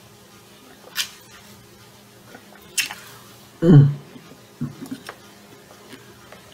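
A person sipping ice water from a foam cup: two short, sharp slurps, then a short low hum that falls in pitch, the loudest sound, followed by a few faint mouth clicks.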